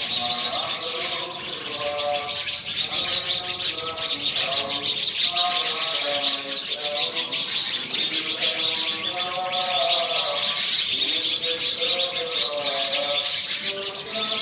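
A flock of sparrows chirping continuously and densely, many birds at once. Under the chirping, a voice chants a scripture recitation in long sung phrases.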